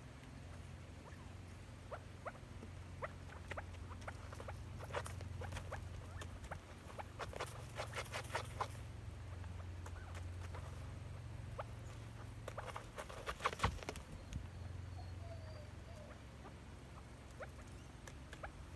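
Small game bird dust bathing in a shallow dish of dry dirt: scattered scratching and pattering as it kicks and flicks the soil, in two busy spells, over a low steady hum.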